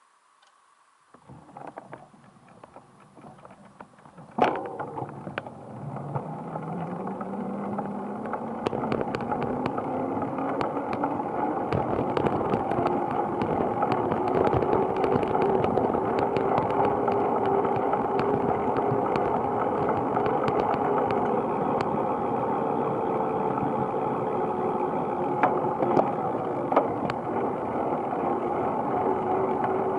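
Wind rush and tyre noise on a camera carried on a bicycle as it pulls away from a stop and gathers speed to about 20 km/h, growing louder over the first ten seconds. A sharp click comes about four seconds in, and a hum rises in pitch as the bike speeds up, then holds steady.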